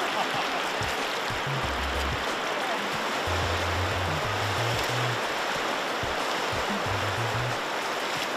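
A river running over a gravel bed, a steady rushing, with background music carrying a low stepping bass line.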